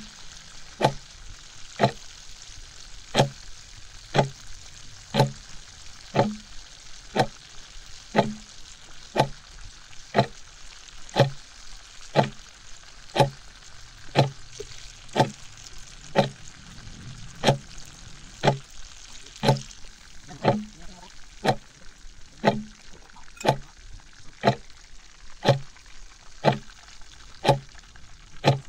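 Whole chicken deep-frying in a wok of hot oil, a steady sizzling hiss. Over it a clock ticks evenly about once a second, the loudest sound throughout.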